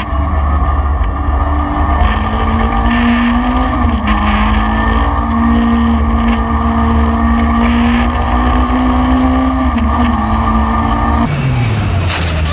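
Competition car's engine heard from inside the cabin, pulling hard at a nearly steady pitch through a long corner with small changes in revs. Near the end the sound cuts to a Mitsubishi Lancer Evolution passing by on track, its engine note falling as it goes past.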